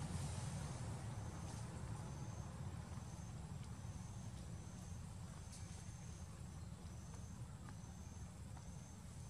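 An insect chirping in short high notes repeated at an even pace, about once or twice a second, over a low steady rumble.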